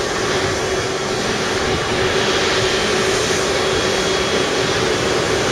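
Steady jet noise from a Japan Airlines Boeing 777 on the ground: an even rushing sound with a constant mid-pitched hum, unchanging throughout.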